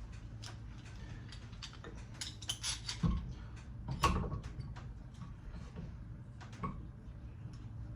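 Clicks and knocks of a metal clamp being handled and set up to hold a knife blade, with a few louder knocks about three and four seconds in, over a steady low hum.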